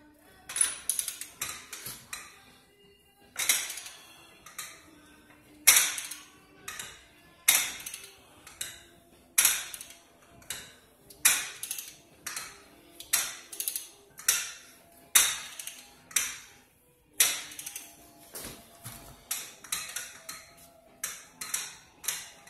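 Repeated heavy metal-on-metal strikes at a BMW E46's rear wheel hub, a long tool worked against the hub assembly to drive or pull parts in the wheel bearing job. A sharp ringing blow comes about every two seconds, each followed by a few lighter clanks.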